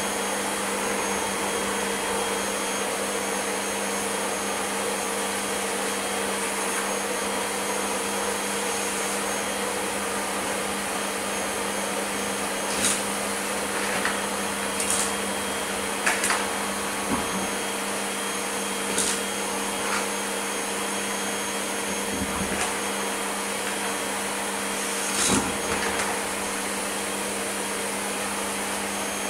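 Zelmer Aquawelt water-filter canister vacuum cleaner running steadily. In the second half there are several short rattles and clatters as scraps of paper and crumbs are sucked up the bare wand tube from the hard floor.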